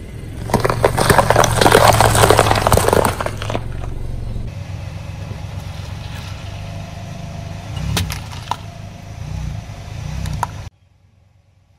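Car tyre rolling over a row of bell peppers, some wrapped in cling film: loud, dense crackling and crunching for the first four seconds or so. Then a tyre slowly crushing a watermelon, with a couple of sharp cracks of the rind about two-thirds through, over the low hum of the car's engine. The sound cuts off shortly before the end.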